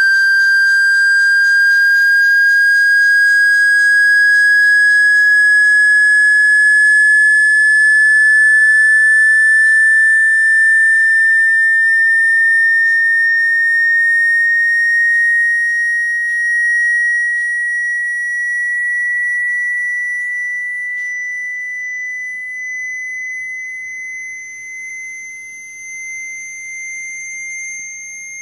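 Synthesized water-eject speaker-cleaning tone: a single high-pitched whistle-like tone rising slowly and steadily in pitch, played to vibrate water or dust out of a phone speaker. It grows somewhat quieter over the last third.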